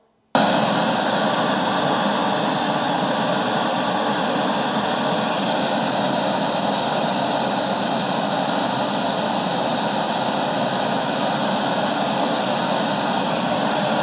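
Pink noise played through a pair of Hertz SX165 Neo 6.5-inch speakers driven by a Hertz HMP4D amplifier, measured at about 118 dB. It is a steady, even hiss across all pitches that switches on abruptly a moment in and holds at a constant level.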